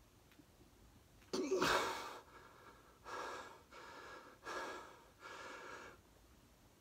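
A man breathing hard from the effort of a long set of push-ups: one sharp, loud breath about a second in, then four heavy breaths in quick succession.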